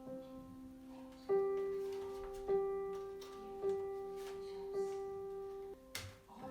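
Background music: a single keyboard note struck four times, about once a second, over steady sustained tones.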